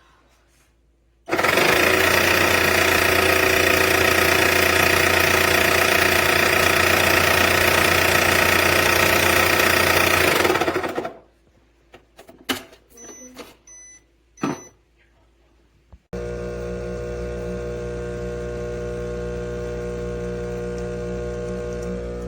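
Breville Barista Touch espresso machine at work: a loud mechanical run for about ten seconds stops, then a few clicks and short high beeps, then a steady buzzing hum starts about sixteen seconds in.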